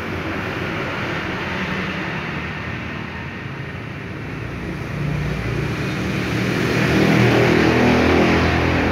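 A running engine or motor, a steady hum with a rushing noise, growing louder in the second half.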